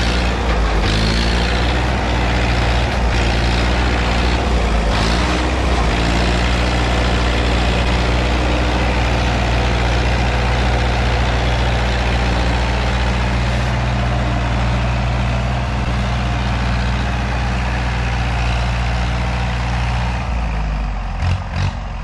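Old tractor's engine running hard as the stuck tractor is worked free, its pitch wavering over the first few seconds, then holding steady before dropping away about twenty seconds in.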